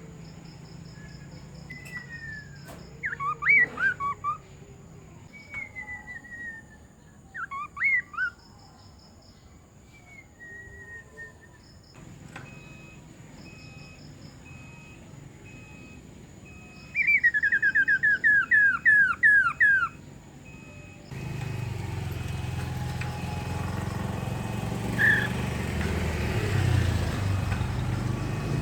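Poksay mandarin (Chinese hwamei) singing loud whistled phrases that slide down in pitch, with a fast run of about ten sharp descending notes in quick succession near the middle. In the last part a low hum and background noise come up.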